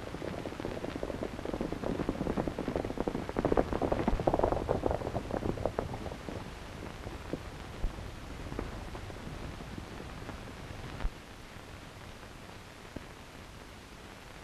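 Horses' hooves clattering on a trail: a rapid, irregular run of hoofbeats that builds to its loudest a few seconds in, then fades away, leaving a few scattered knocks over the hiss of an old film soundtrack.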